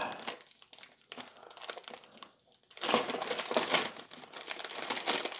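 Crinkling of a small clear plastic bag of mounting hardware being handled and opened, faint at first and denser from about three seconds in, with light clicks mixed in.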